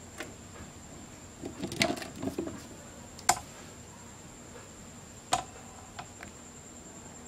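Wires and a plastic connector handled on a TV circuit board: a brief cluster of small rustles and knocks, then two sharp clicks about two seconds apart and a lighter tick after them.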